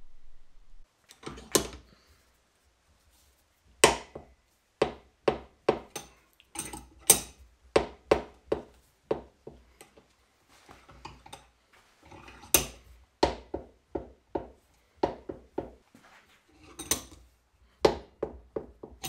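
Sharp metal clacks and knocks, irregular, about one to two a second, from a bench vise being wound tight to press the old 6204 ball bearing out of a Honda lawn mower's clutch housing. The clicks start about a second and a half in, with a short lull near the middle.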